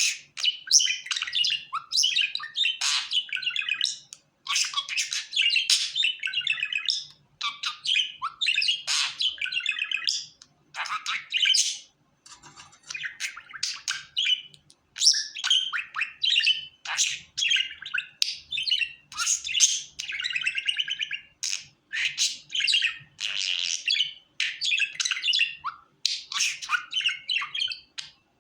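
Pet budgerigar chattering and warbling without pause, a fast run of chirps and squawky notes broken into phrases of a second or two with brief gaps.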